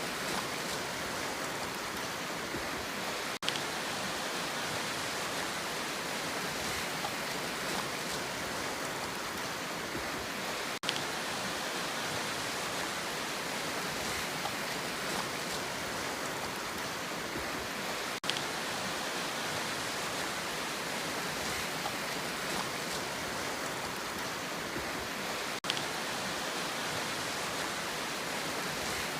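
Steady rushing noise of sea surf, with no rise and fall of single waves and a brief dip about every seven and a half seconds.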